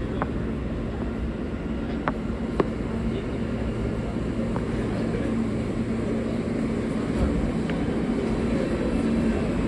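R160 subway car heard from inside while running: a steady low rumble of the train on the track, with a constant hum that grows a little stronger partway through, and a couple of light clicks about two seconds in.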